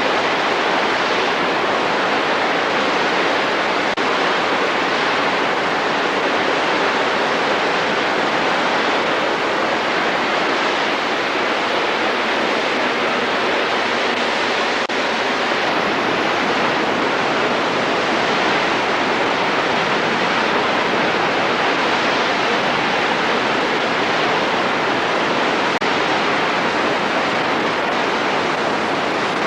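Mena Creek in flood: fast water rushing steadily and loudly, with no breaks or changes.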